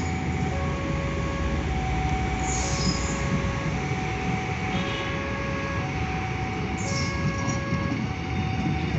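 A KRL electric multiple-unit trainset rolling slowly along the track as it is shunted, with a steady low running noise and brief high squeals from the wheels every few seconds. Throughout, a level-crossing warning alarm sounds in two alternating tones.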